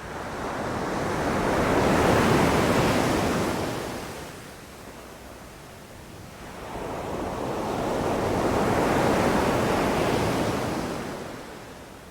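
Ocean waves surging and washing out twice. Each wave swells up over a couple of seconds and then fades, with a quieter lull between them.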